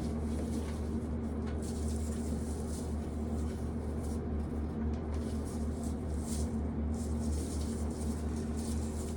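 Electric box fan running with a steady hum, over light, irregular rustling of dry corn cobs being handled.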